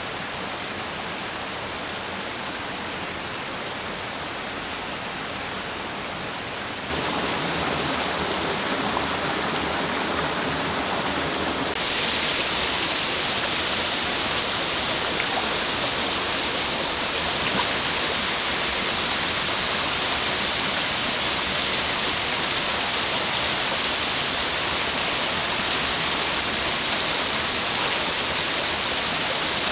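Small waterfalls cascading into a rocky stream pool: a steady rush of water. It steps louder about seven seconds in and again a few seconds later.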